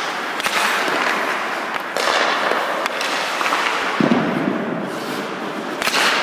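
Ice hockey drill on a rink: skate blades scraping the ice as the goaltender slides across the crease, broken by sharp, echoing cracks of sticks shooting pucks and pucks hitting the goalie's pads, about every second or two, the last crack near the end.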